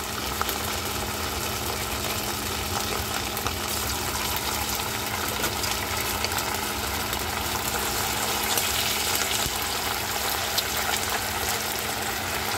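Marinated pork pieces deep-frying in hot oil: a steady sizzle with many small crackles and pops, over a steady low hum.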